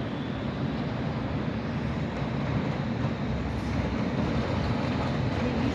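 Electric tram running, a steady low rumble with no change in level.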